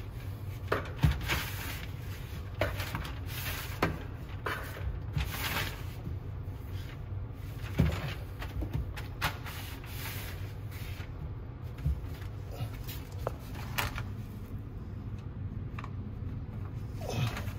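Scattered knocks, clicks and rustling of hands working at a snake enclosure, a cupboard-like door or panel being handled, over a steady low hum.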